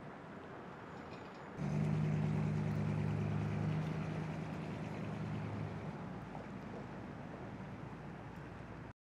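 A vintage car's engine comes in suddenly about a second and a half in and runs as the car pulls away, the hum fading over the next few seconds. The sound cuts off abruptly just before the end.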